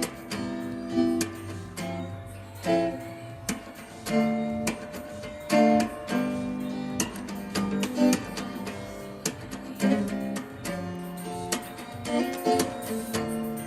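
Background music led by a plucked acoustic guitar, in a steady rhythm.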